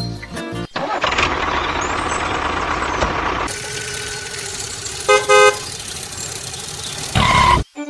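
Vehicle engine running steadily, with a short double horn toot about five seconds in.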